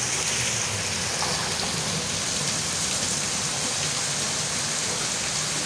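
Heavy rain falling steadily on a wet yard and puddles, a continuous even hiss.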